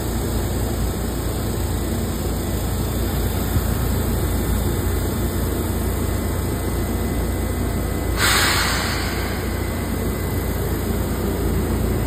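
Yellow Seibu Railway commuter electric train pulling into a station platform, running past with a steady low rumble. About eight seconds in, a short sharp hiss breaks out and fades over a second.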